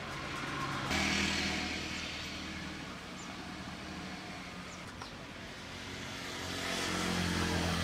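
Motor vehicle engine noise with a steady low hum. It gets suddenly louder about a second in, eases off, and swells again near the end. A few faint clicks come in the middle.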